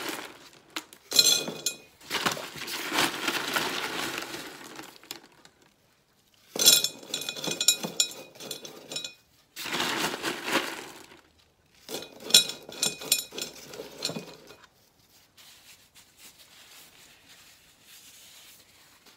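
Pebbles dropped by the handful into a glass vase, clattering against the glass and each other in about five bursts of sharp clinks. The bursts stop about fourteen seconds in.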